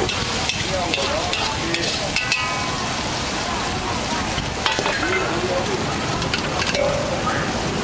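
Pad thai noodles sizzling in a hot wok while a metal spatula stirs and pushes them around, with a few sharp clinks and scrapes of the spatula against the wok.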